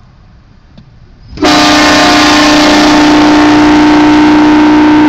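Train horn sounding one very loud, long blast of about four seconds, a chord of several steady tones that starts abruptly about a second and a half in.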